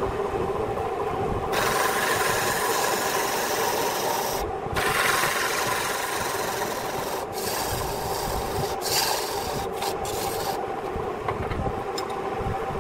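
A wood lathe's motor hums steadily while a hand-held chisel cuts the spinning wood, making a scraping noise. The cutting starts about a second and a half in, goes on in several passes with short breaks, and stops a couple of seconds before the end, leaving only the motor hum.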